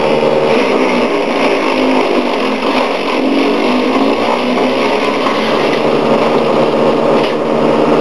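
Wood chipper's four-stroke petrol engine running steadily, its pitch sagging and recovering now and then as it works.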